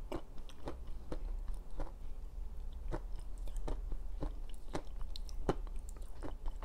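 Close-miked chewing of a bar of black slate clay, softened by soaking in boiling water: crisp crunches and moist chewing, one about every half second to a second.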